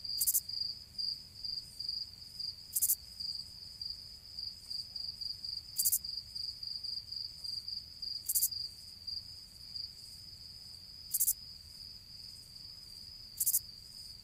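Cricket chirping: a steady, high-pitched trill of rapid pulses, with a short, sharp high click every two to three seconds.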